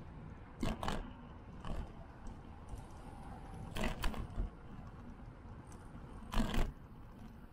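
Bicycle ride noise on a bike-mounted action camera: a steady low rumble of wind and tyres with a few sharp rattling knocks over bumps. The knocks come in pairs about a second, four seconds and six and a half seconds in.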